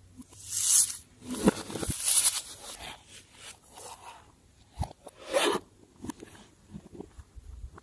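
Crackling, scraping handling noises of slime and its mix-ins being worked by hand, coming in several short, uneven bursts.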